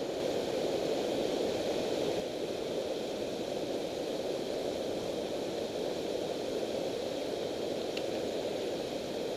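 Steady rush of river water pouring over a low-head dam spillway, a little louder for the first two seconds.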